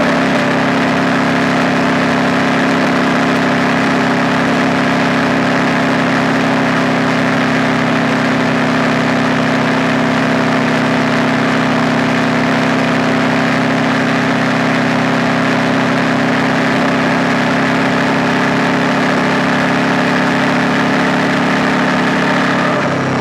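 KTM 890 Duke R's parallel-twin engine running at a steady, unchanging engine speed, heard through the onboard camera's microphone.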